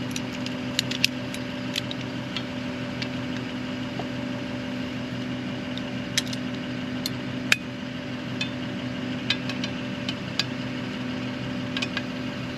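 An engine idling steadily, with scattered light metallic clicks and clinks.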